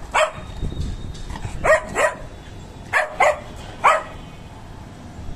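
Small poodle barking: about six short, high barks in ones and twos, stopping about four seconds in.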